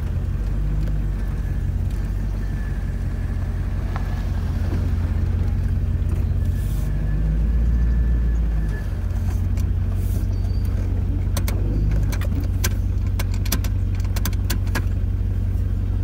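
Land Rover Defender 90's V8 engine idling steadily, heard from inside the cab. A cluster of sharp clicks and rattles comes in about three quarters of the way through.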